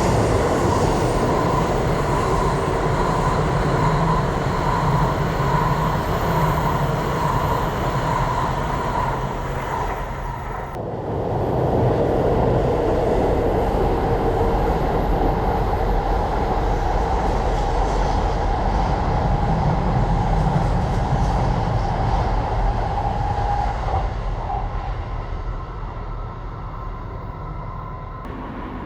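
Trains passing on the tracks below: a loud, steady rumble with a humming whine. It eases off about ten seconds in, a second loud pass follows, and it fades away near the end.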